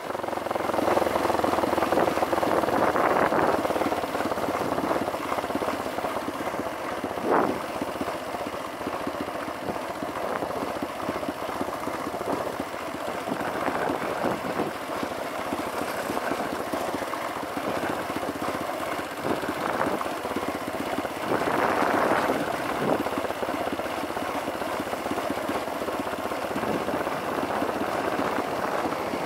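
Dirt bike engine running as the bike rides along a paved road, mixed with wind rushing over the onboard microphone. The engine note swells louder in the first few seconds and again about three-quarters of the way through, with one short sharp noise about a quarter of the way in.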